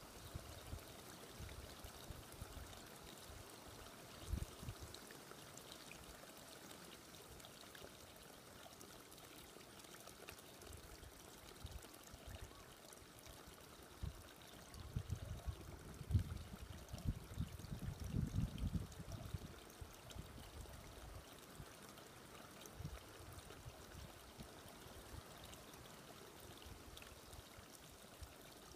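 Faint, steady sound of flowing water, with a few low rumbles in the middle.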